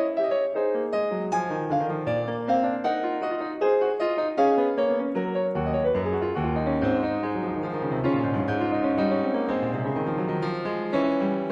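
Solo piano music: a flowing melody of struck notes over a bass line that drops lower about halfway through.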